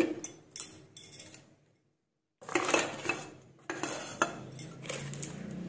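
Slotted steel spatula clinking and scraping against a stainless steel kadai holding boiled peanuts, in a few short bouts of clatter, broken by a moment of dead silence about two seconds in.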